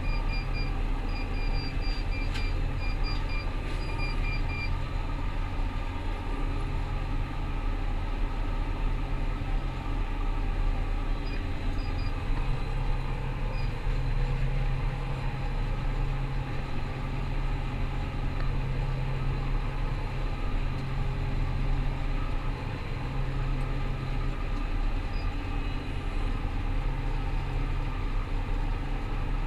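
Rostselmash Vector 425 combine harvester running steadily, its diesel engine giving a low, even drone. A series of short, high beeps sounds in the first few seconds, and a few more about twelve seconds in.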